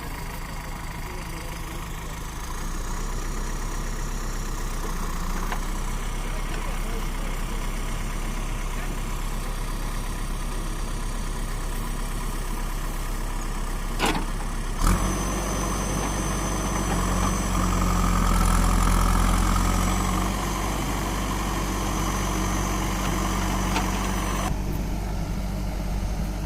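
Heavy machine's diesel engine running steadily, with two sharp knocks about halfway through; the engine then works harder and louder for a few seconds before settling back. Voices in the background.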